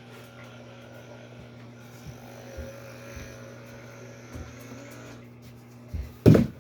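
A steady low hum, then a couple of loud knocks about six seconds in, from a plastic toy egg being handled.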